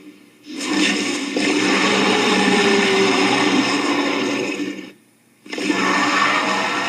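Two long, noisy monster-dinosaur roar sound effects, separated by a short break about two-thirds of the way through.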